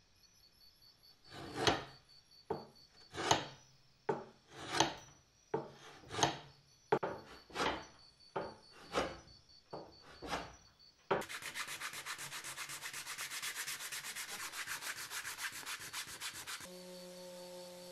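Hickory axe handle being sanded by hand: about a dozen separate scraping strokes of abrasive on wood, roughly one every 0.7 s. About 11 s in they give way to fast, even rubbing with sandpaper. Near the end an electric detail sander starts with a steady hum.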